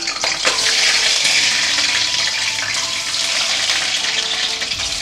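Peeled hard-boiled eggs sizzling in hot mustard oil in a steel kadai: a steady, loud frying hiss that swells about a second in as more eggs go into the oil.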